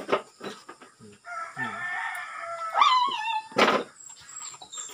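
A rooster crows once, a long call of about two and a half seconds starting about a second in. Around it come close wet biting and chewing sounds of a person eating a ripe soursop, the loudest just after the crow ends.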